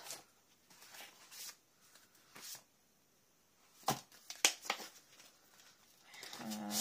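Clear stamp sets in their plastic sleeves being handled: scattered plastic rustling and a few sharp clicks, the loudest about four and a half seconds in.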